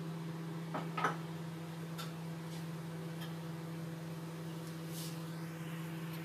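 Whole cinnamon, cloves and cardamom heating in oil in a wok, giving a few scattered faint ticks and pops, the strongest pair about a second in, over a steady low hum.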